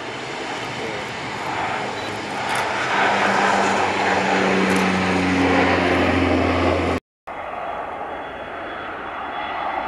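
Saab twin-turboprop airliner taking off and climbing out: engine and propeller noise building to a loud drone with a low steady propeller hum. About seven seconds in it cuts abruptly to fainter jet engine noise with a thin high whine from an Embraer jet on the runway.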